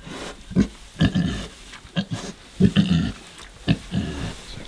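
Pigs making a string of short grunting calls, about six in four seconds, from a sow in labour and her newborn piglets.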